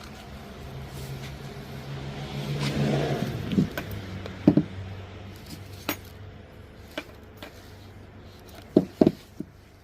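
A vehicle's engine hum swells to a peak about three seconds in and then fades, as a car passing by would. It is followed by scattered sharp knocks and clicks, loudest in the middle and in a pair near the end.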